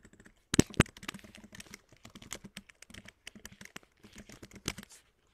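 Typing on a computer keyboard: a quick, irregular run of key clicks, with two louder keystrokes about half a second in.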